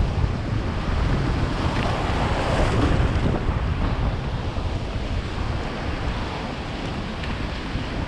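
Wind buffeting the microphone over the steady rush of choppy surf washing across a shallow reef, with one wave's wash swelling a couple of seconds in.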